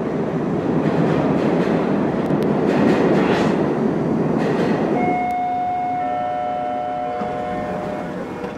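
Steady rumbling noise like a passing vehicle. About five seconds in, several steady tones start sounding together, and they fade out near the end.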